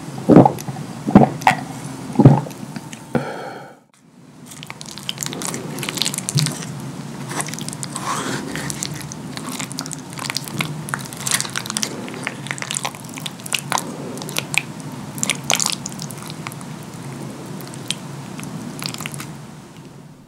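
A few loud, close gulps as a drink is swallowed. After a short break comes a run of wet, sticky clicks and squishes as a wooden fork cuts and scoops through cheesy lasagna in a foil tray.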